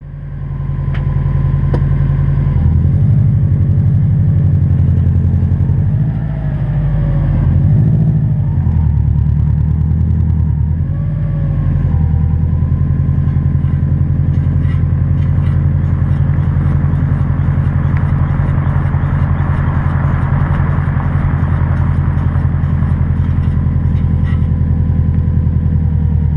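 2006 Subaru WRX in motion: a steady low drone with a grinding, scraping noise from the front passenger-side wheel, with tones wavering up and down in the first ten seconds or so. The grinding comes from a bad front wheel bearing.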